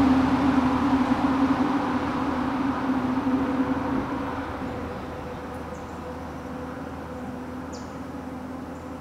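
Steady mechanical drone of a distant engine, fading away from about four seconds in. A faint short high chirp near the end.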